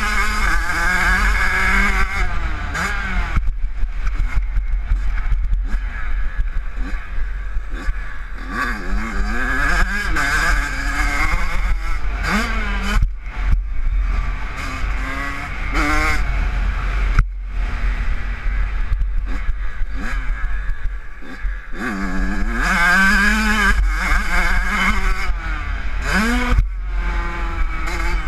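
Kawasaki KX85 two-stroke motocross bike engine revving hard and shifting through the gears, pitch climbing and falling again and again, with short drops where the throttle closes. A steady low wind rumble on the helmet microphone runs underneath.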